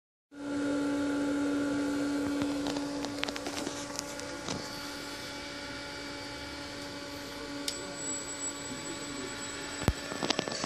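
Steady electrical hum with several steady tones from a powered LUST inverter drive and the electric motor wired to it. A few light clicks come in the middle; a thin high whine sets in about three quarters through, and a sharp click near the end as the inverter's keypad is handled.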